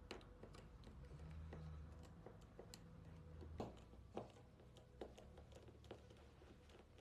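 Faint, scattered small clicks and taps of a precision screwdriver and fingertips on the phone's metal frame and internal brackets as screws are undone and parts lifted, the clearest a little past halfway.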